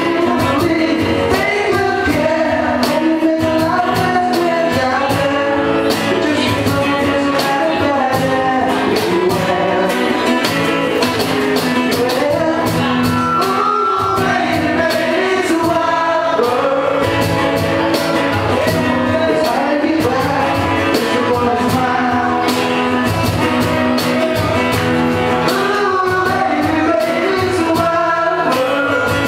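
A live rock band playing with a sung vocal over guitar and drums.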